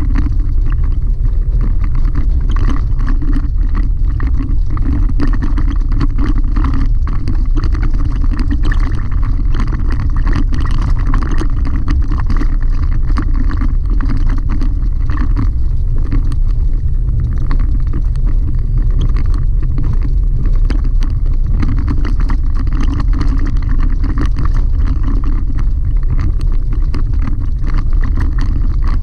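Chevrolet Colorado ZR2 pickup driving steadily on a gravel dirt road, heard from inside the cab: a constant low rumble of tyres and drivetrain with many small gravel ticks.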